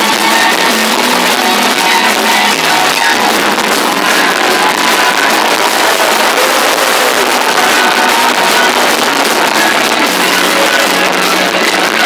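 Live rock band playing loud, with several electric guitars carrying the music, heard from among the audience.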